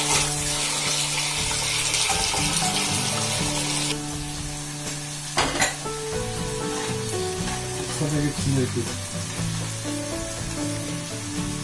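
Tap water running into a metal pot as chicken pieces are rinsed, stopping about four seconds in. Then a pan of chopped tomatoes sizzling as it fries on a gas burner, with one sharp knock soon after the change.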